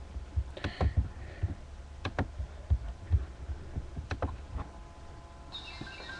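Irregular sharp clicks and soft low thumps of handling noise, as a puppet is moved about close to the microphone. Music with singing starts near the end.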